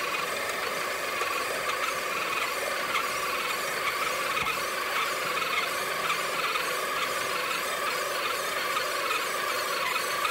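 Electric motor and gearbox of a stock Axial SCX10 II Deadbolt RC crawler whining steadily and wavering under load as it struggles through mud, edging forward.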